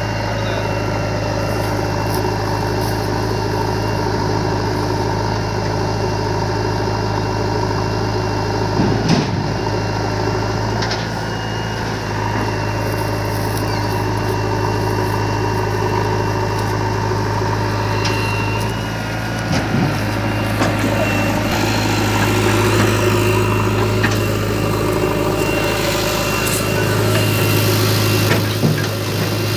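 Diesel engines of a JCB 3DX backhoe loader and a tractor idling, a steady low hum with a few brief knocks; near the end, soil is tipped from the backhoe bucket into the tractor's metal trolley.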